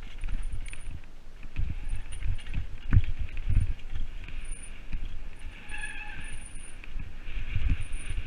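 Mountain bike rattling and knocking over a rocky forest trail at speed, its tyres crunching over stones, with one hard knock about three seconds in. A short squeal sounds briefly about six seconds in.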